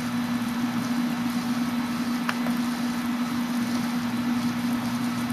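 Steady electrical hum from an HHO electrolysis cell driven by a pulse-width-modulation controller, the PWM switching frequency audible in the cell, over a hiss of gas bubbling. A single light click about two seconds in, from the controller's push-button.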